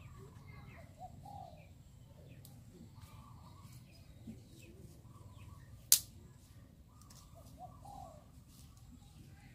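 Birds call faintly over a low outdoor background, once about a second in and again near the end. About six seconds in comes one sharp, loud crack of wood from sticks being fed into a small wood fire in a clay stove.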